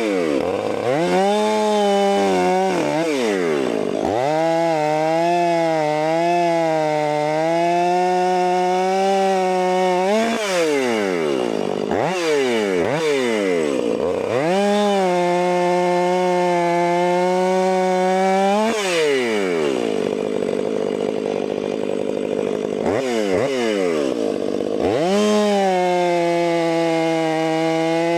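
Stihl 500i fuel-injected two-stroke chainsaw cutting through a pine log at high revs. The engine note dips and climbs back in pitch several times as the throttle is eased and squeezed again between passes.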